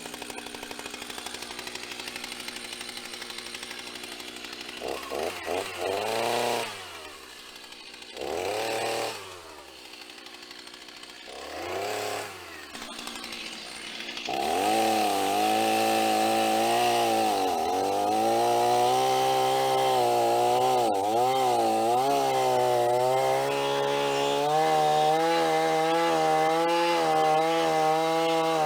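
Stihl MS 290 two-stroke chainsaw idling, revved three times, then held at full throttle from about halfway in. Its pitch sags and recovers again and again as it cuts into firewood logs.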